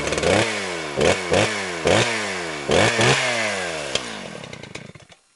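Small gasoline engine revved in about six quick blips, its pitch falling back after each, then dying away near the end.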